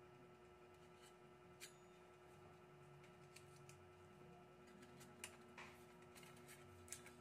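Near silence with a few faint clicks and light metallic handling sounds as a bearing and gear are worked on the end of a copier's orange fuser roller, over a faint steady hum.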